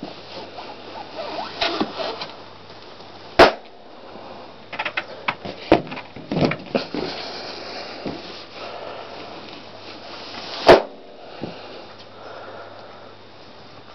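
Latex balloons stomped underfoot, bursting with two sharp, loud pops about seven seconds apart, with softer rubbery rustles and knocks of the foot pressing the balloons and sheet between them.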